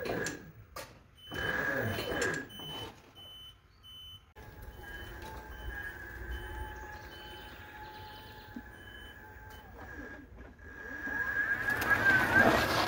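A Ryobi 480e 48-volt electric riding mower drives on concrete. Its electric drive gives a steady high whine that grows louder near the end as the mower comes closer, with some quick bends in pitch. Faint rapid beeping runs through the first half.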